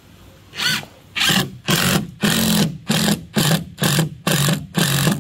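Power drill run in short trigger pulses, about two a second and nine in all, each pulse spinning the motor up and down, driving a screw into a mahogany floor plank.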